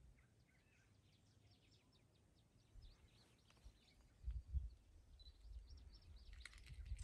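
Faint birdsong: scattered short, high chirps from forest birds, with a low rumble about four seconds in and again near the end.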